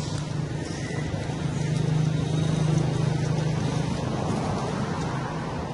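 Low, steady hum of a motor vehicle engine, growing louder about two seconds in and then easing off, as from a vehicle passing.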